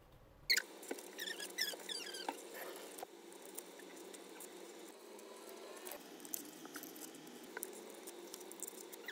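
Small scissors snipping around drawn shapes in a sheet of white card: irregular crisp snips and paper crackle. A few short squeaks sound about a second in.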